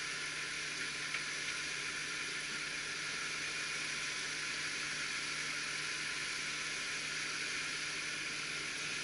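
Steady hiss with a faint, even low hum underneath, as of an off-road vehicle's engine idling; no revving.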